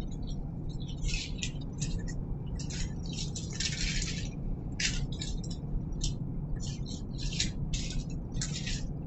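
Dry, papery skin of a red onion crackling and rustling as it is peeled off by hand, in a string of short, irregular scratchy bursts.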